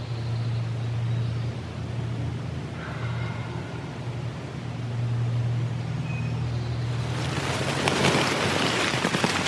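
A steady low engine hum, like a motor vehicle, swelling and fading twice. From about seven seconds in, a louder rush of rustling, crackling noise comes over it.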